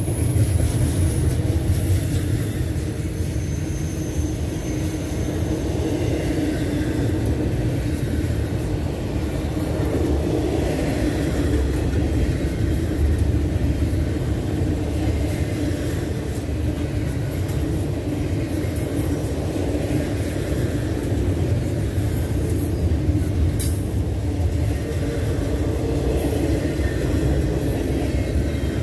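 Double-stack intermodal freight train rolling past: the steady low rumble of loaded well cars' steel wheels on the rails.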